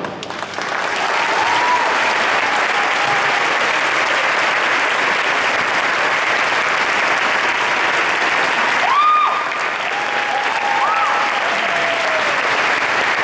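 Audience applauding steadily, with a few voices cheering over it about nine and eleven seconds in.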